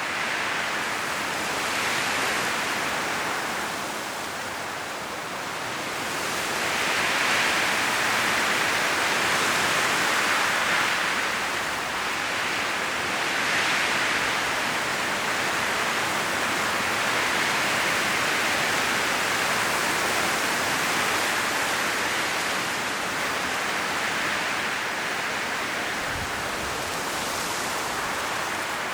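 Strong wind blowing through forest trees, the leaves rustling in a continuous wash that swells in gusts every few seconds and eases between them.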